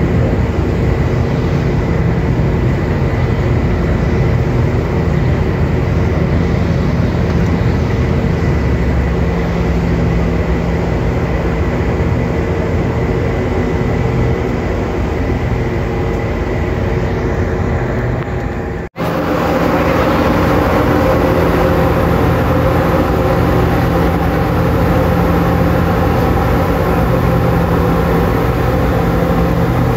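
Ship diesel engines running with a steady low drone. The sound cuts out for an instant about 19 seconds in and comes back a little louder and hissier.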